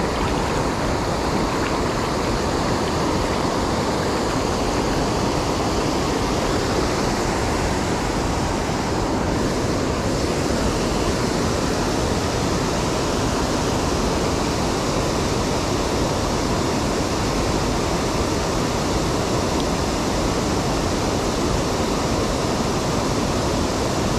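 Creek water rushing steadily, an even, unbroken wash of noise.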